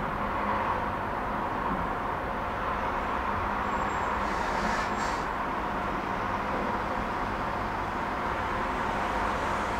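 Tram in motion, heard from inside the car: a steady running noise of wheels on rails.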